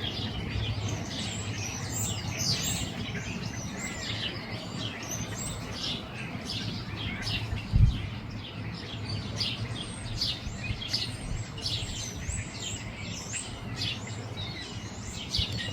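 Many small birds chirping and twittering around garden feeders, with one low thump about eight seconds in.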